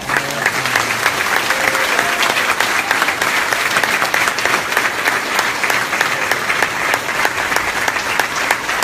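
Audience applauding. The clapping breaks out all at once and holds steady.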